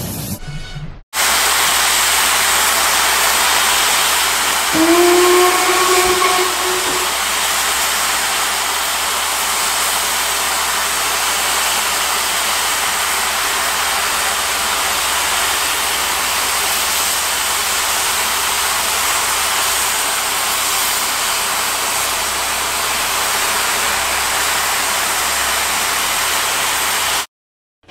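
Steam locomotive sound effect: a steady, loud hiss of escaping steam, with one steam whistle blast on a single steady note about five seconds in, lasting about two seconds. The hiss cuts in abruptly about a second in and stops abruptly just before the end.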